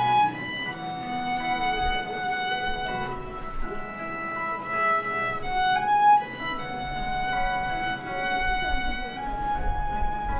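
Violin, bowed, playing a slow melody with notes of varying lengths, some held for a second or more.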